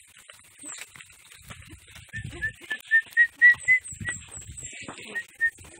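A person whistling a run of short, clear notes, about four a second, that rise a little in pitch and fall back. A few dull knocks sound underneath.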